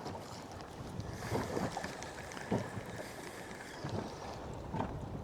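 Wind buffeting the microphone and water lapping against a small boat's hull at sea, with a few short knocks.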